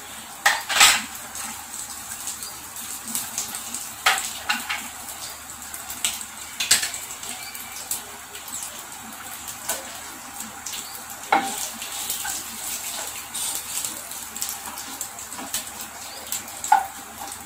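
Mustard seeds, cumin, dry red chillies and curry leaves sizzling in hot oil in a non-stick kadai, with scattered sharp pops and crackles as the seeds splutter. Near the end a wooden spatula stirs the tempering against the pan.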